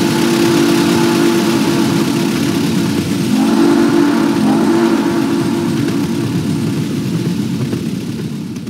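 Steam locomotive chime whistle blowing long blasts of several notes at once, over the rumble and hiss of a moving train, fading out near the end.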